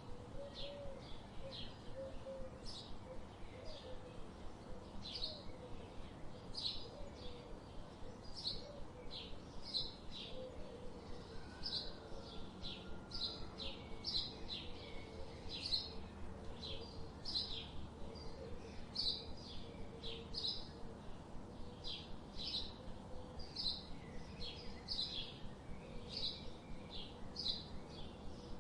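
Small songbirds chirping: a steady series of short, high chirps, about two or three a second.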